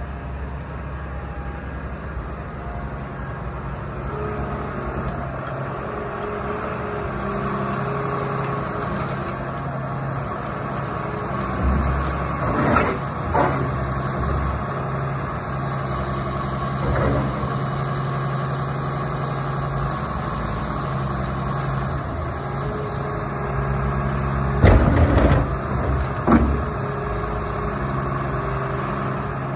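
Cat 320E L crawler excavator's diesel engine running steadily while the hydraulic boom and arm are worked, its note shifting slightly as the load changes. A few loud clunks come about twelve seconds in and again a little before the end.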